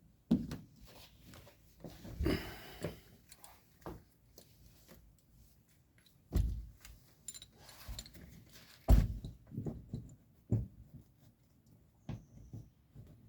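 Irregular knocks, clunks and rustling as a wrench and seatbelt hardware are worked to tighten a lap-belt anchor bolt in a car's floor. The loudest knocks come about six and nine seconds in.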